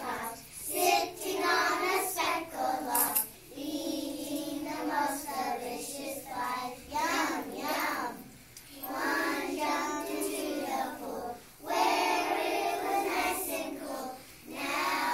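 A group of young children's voices reciting a poem together in unison, in a sing-song chant, with short breaks between lines.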